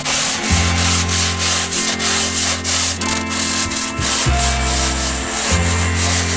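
A hand scraper rubbed in rapid back-and-forth strokes over EPS foam insulation boards, evening out the surface of the foam.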